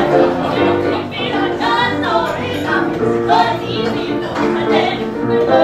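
Music with a singing voice, over steady held notes.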